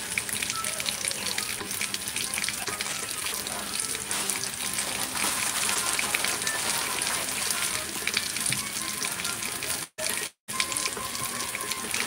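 Eggs and home fries sizzling in two frying pans on the stove: a steady crackling hiss that drops out briefly about ten seconds in.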